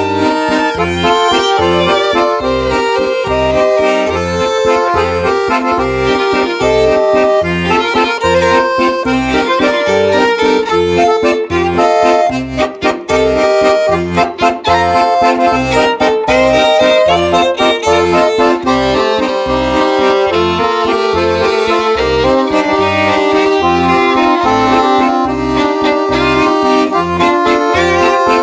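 Accordion and violin playing a Galician maneo dance tune, the accordion's bass keeping a steady, even pulse under the melody. The sound thins briefly about halfway through.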